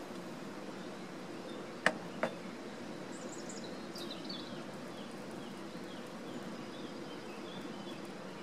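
Outdoor ambience: a steady low background noise with a faint hum, two sharp clicks close together about two seconds in, and small birds chirping high and thin for a few seconds after.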